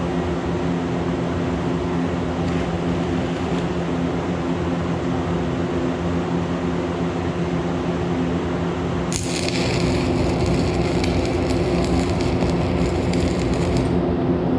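Old stick welder humming steadily with its heat just turned up. About nine seconds in the arc strikes and crackles and hisses for about five seconds as a short stitch weld is laid with a used rod, then breaks off.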